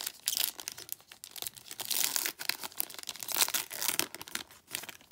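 Foil-lined trading card pack wrapper being torn open and pulled apart by hand: a dense run of crinkling and tearing crackles that dies away shortly before the end.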